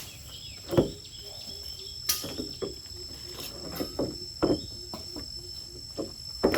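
Steady high-pitched insect chirping, with several sharp knocks at irregular intervals.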